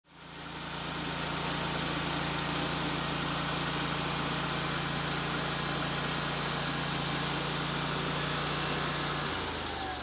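Hud-Son Oscar 336 Pro portable bandsaw mill running, its engine holding a steady note under a steady hiss as the band blade is pushed through a log. The engine note drops about nine seconds in.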